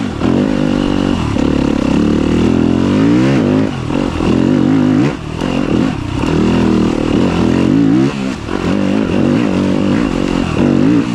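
Yamaha YZ250FX dirt bike's four-stroke single-cylinder engine revving up and dropping off over and over under the throttle, its pitch climbing and falling every second or two with short dips between pulls.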